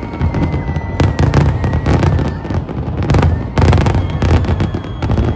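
Aerial fireworks exploding in rapid, irregular succession: deep booms and sharp bangs overlapping, with a constant low rumble underneath.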